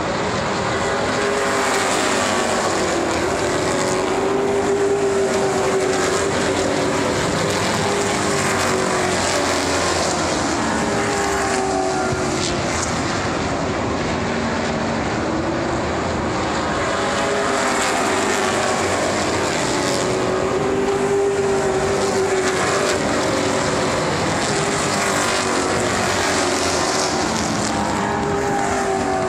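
A field of race cars running laps, their engine notes rising and falling as the pack sweeps past again and again, about every eight seconds.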